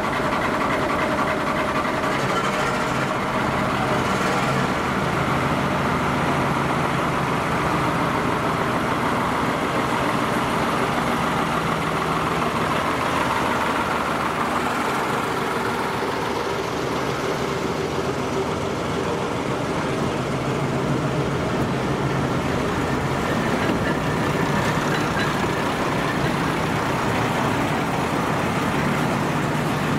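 Diesel engine of a small shunting locomotive running steadily as it moves slowly past at close range, hauling brake vans.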